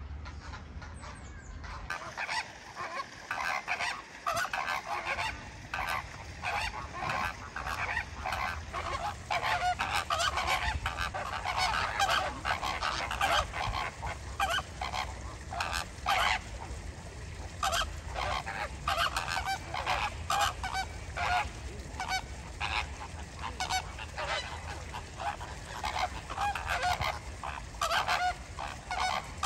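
A flock of flamingos calling: many short, honking calls overlapping in a continuous chorus. It starts about two seconds in.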